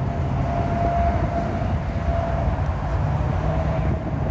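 Steady rumble of an airliner's jet engines passing low overhead, with a faint high whine, over the hum of motorway traffic and wind on the microphone.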